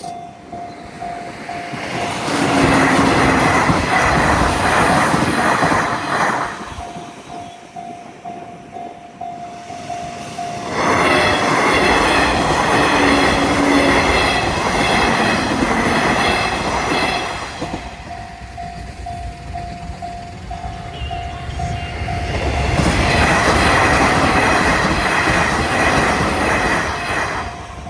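Railroad crossing warning bell ringing steadily in an even pulse. Trains pass over the crossing three times, each pass a loud rush of wheel and rail noise lasting several seconds that drowns out the bell.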